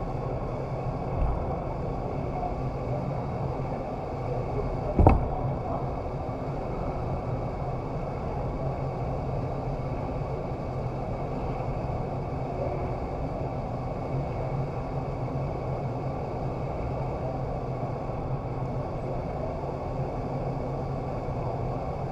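Steady rush of air and fan noise inside the flight chamber of an indoor vertical wind tunnel, with a low steady hum underneath. A sharp thump stands out about five seconds in, with a smaller one a little after the first second.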